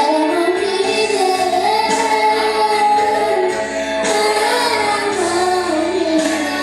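A woman singing a slow worship song with instrumental accompaniment: a single wavering, sliding vocal line over steady sustained chords.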